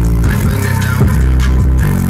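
Music with a heavy bass line playing loudly through two Genius Audio Vulkan V5-12D4 12-inch subwoofers, the deep bass notes shifting pitch a few times.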